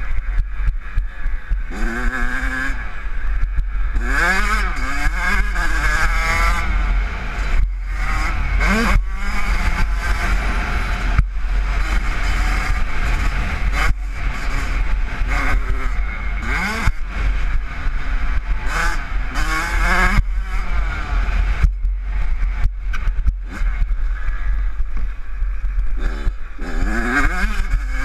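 Kawasaki KX85 two-stroke engine revving hard, its pitch climbing, breaking off and climbing again over and over as the rider accelerates, shifts and backs off. A heavy wind rumble on the helmet microphone runs underneath.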